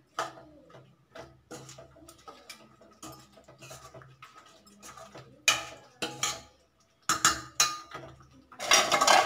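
A spoon scraping and knocking against a stainless-steel kadai as a thick gravy is stirred. It is a run of irregular clinks, with sharper knocks in the second half and a louder, busier stretch of scraping near the end.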